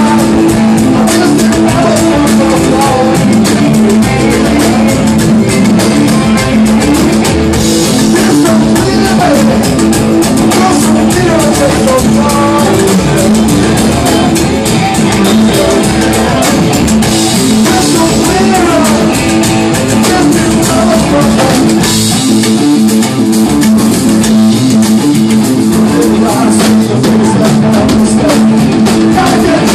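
Live rock band playing loud: electric guitars and drum kit, with a guitar lead of bending, gliding notes over a sustained low note.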